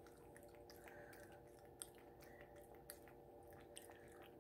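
Domestic cat lapping water from a glass fishbowl: a faint, irregular run of small wet ticks over a low steady hum.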